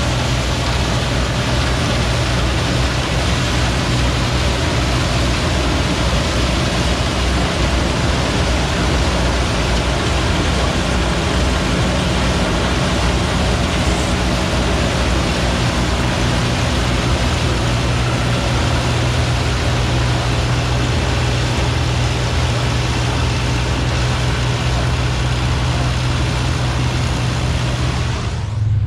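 Vintage combine harvesting corn: the engine and threshing machinery running steadily under load.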